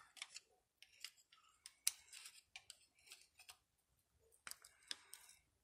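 Sparse light clicks and taps of needle-nose pliers and small valve-train parts at a valve spring retainer on a small-block Chevy cylinder head, with a sharper click about two seconds in.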